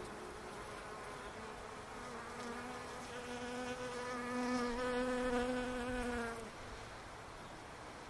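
Bees buzzing in a steady hum. About two seconds in, a single bee comes close with a louder, pitched buzz that swells and then cuts off after about six and a half seconds.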